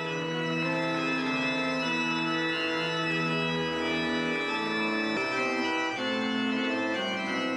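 Organ playing slow, sustained chords, with the chord changing about five seconds in and again a second later.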